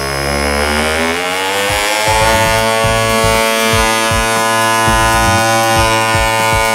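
Montolit Battile vibrating tile suction cup running, its motor buzz rising in pitch over the first two seconds and then holding steady as it vibrates a large tile down into the adhesive bed, with an uneven low knocking underneath.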